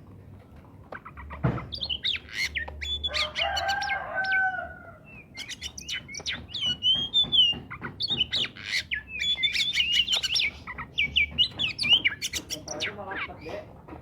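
Oriental magpie-robin in full song: loud, varied whistled phrases and quick chattering notes in bursts, easing off briefly about five seconds in. This kind of vigorous song is played as a lure to get other magpie-robins to sing.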